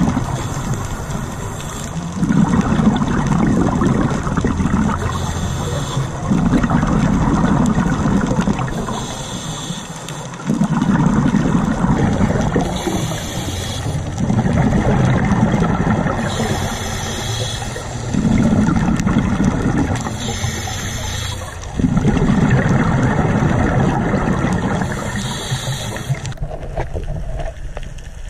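Scuba diver breathing through a regulator underwater: a short hiss on each inhale, then a longer rumble of exhaled bubbles, about seven breaths at roughly four-second intervals. The breathing stops a few seconds before the end.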